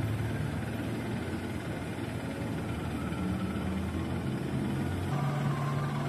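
Large bus engine idling steadily with a low hum; about five seconds in the hum shifts to a slightly higher steady note.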